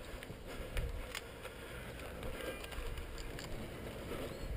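Footsteps on dirt and rubble and the rustle of gear, heard through a body-worn camera's microphone with a low wind rumble, and a couple of sharp clicks about a second in.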